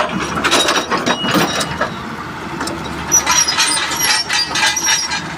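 Rapid clusters of metal clanks and knocks with a brief ringing, in two bunches, over an engine running in the background.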